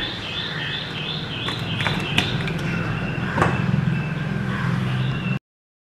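A knife cutting a block of butter and butter pieces dropping into a mixing bowl on a kitchen scale: a few light knocks and taps over a steady low hum and a faint repeated high chirp. The sound cuts off abruptly near the end.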